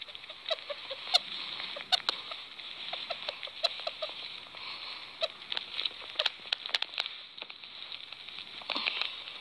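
Sugar gliders in a fleece pouch making small ticking and chirping sounds over a rustle of fleece. The rustling gets louder near the end as a hand handles the pouch.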